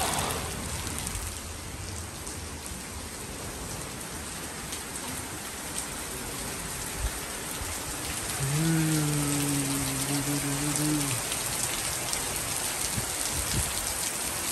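Heavy rain falling steadily on trees, lawn and roofs: an even hiss of rain. Near the middle, a low voice holds one note for about three seconds.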